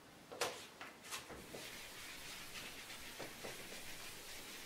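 Handheld eraser wiping a whiteboard: a faint, steady rubbing hiss, preceded by a couple of light clicks in the first second or so.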